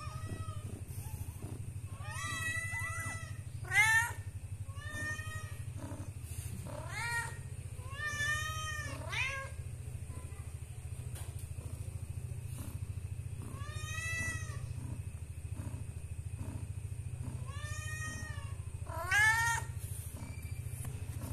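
A cat meowing repeatedly, about ten separate rising-and-falling meows with pauses between them. The loudest come about four seconds in and near the end, over a steady low hum.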